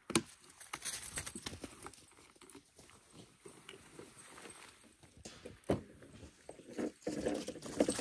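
Irregular footsteps and handling knocks on snowy, leaf-littered ground, with a sharp knock just after the start and another a little before six seconds in, and a busier stretch of movement near the end.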